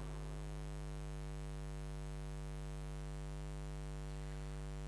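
Steady electrical mains hum with a faint buzz and hiss: an unchanging low drone at the mains frequency.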